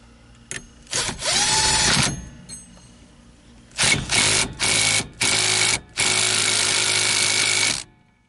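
Power drill/driver running in short bursts, driving in the steering hub's mounting bolts: one run about a second in that winds up and back down, then four quick runs close together, the last and longest ending near the end.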